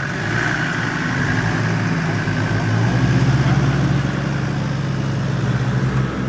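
Land Rover Defender's engine running at low revs as it crawls through a deep rut under load, growing louder and deeper about three seconds in.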